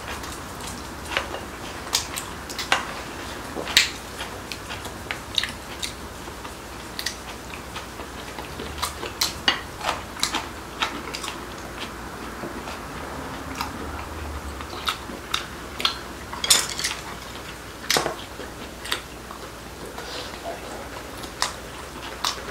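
Eating at a table: wooden chopsticks and a wooden spoon clicking against ceramic bowls and plates at irregular intervals, with chewing between the clicks.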